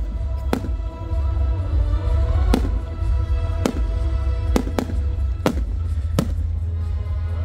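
Fireworks bursting in a display: about seven sharp bangs at irregular intervals, two of them close together near the middle. Music with a heavy bass plays steadily underneath.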